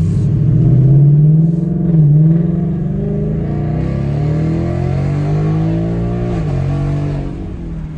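Ford Mustang GT's 5.0 L Coyote V8 under hard acceleration, its pitch climbing, with a shift about two seconds in, a longer climb and another shift at around six and a half seconds. The exhaust has an X-pipe in place of the resonator and the active mufflers are set to track mode.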